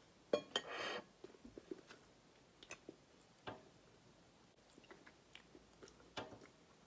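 Quiet eating sounds: a knife and fork clicking and scraping against a ceramic plate as a cheeseburger is cut, with a few scattered sharp clinks and a short scrape near the start, and faint chewing between.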